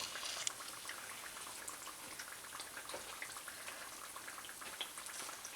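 Hot oil sizzling and crackling steadily around banana fritters deep-frying in a pan, with a few light clicks.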